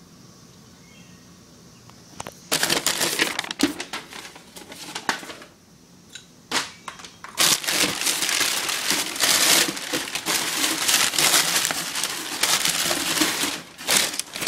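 Packaging crinkling and crackling as parts are unwrapped. It starts a few seconds in, pauses briefly near the middle, then carries on loud and continuous.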